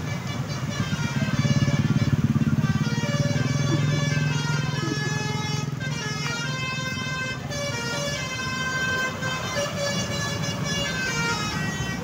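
Bus 'basuri' musical horn (telolet) playing a melody of stepped notes over the low running of a passing engine, which is loudest in the first few seconds.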